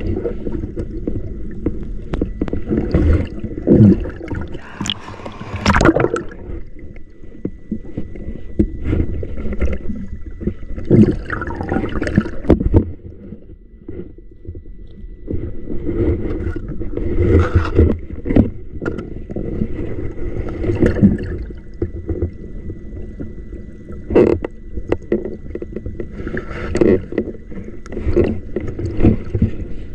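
River water splashing and sloshing irregularly close to the microphone, in uneven surges.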